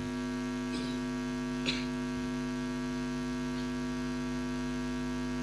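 Steady electrical mains hum, a low even buzz, with one faint click just under two seconds in.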